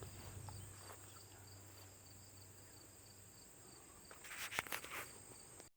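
Quiet outdoor ambience of insects, a steady high trill with crickets chirping in an even pulse. A faint low hum dies away after about three seconds, and a few brief rustles and clicks come near the end.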